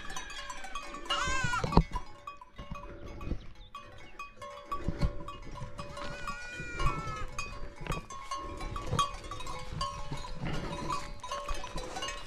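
A young goat (kid) bleating twice, high-pitched: one call about a second in and a second, lower one about six seconds in.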